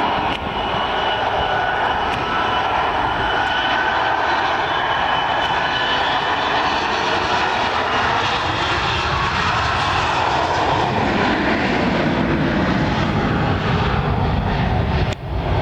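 Jet airplane taking off at full power: loud, steady engine noise with faint whining tones sliding downward, and a deeper rumble building about eleven seconds in.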